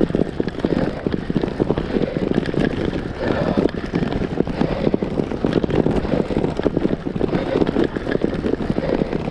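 Road bike rattling over cobblestones: a dense, continuous clatter of the tyres and frame jolting on the pavé.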